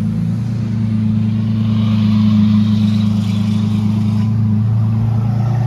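Lamborghini Aventador SVJ's naturally aspirated V12 running at low revs as the car rolls slowly away: a steady, deep engine note that shifts slightly in pitch near the end.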